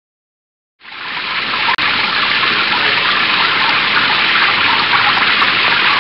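Steady hiss of heavy rain, starting abruptly just under a second in and cutting out for an instant near two seconds.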